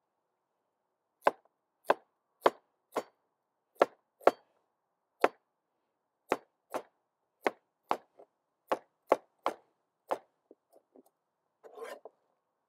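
Broad-bladed kitchen knife chopping carrots on a plastic cutting board: a string of sharp knocks at an irregular pace, about one to two a second, turning to a few lighter taps and a short rustle of the pieces near the end.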